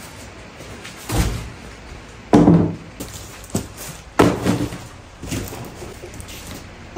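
Cardboard packing being pulled off a boxed plastic car bumper and tossed aside: four or five separate thumps and scrapes of cardboard, roughly one every second or so.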